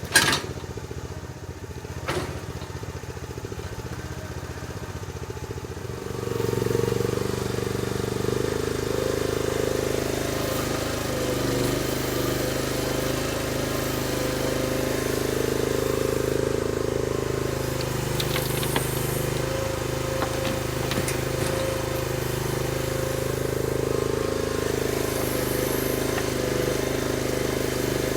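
Small engine running, with two sharp knocks near the start. About six seconds in it is throttled up and runs steadily at higher speed.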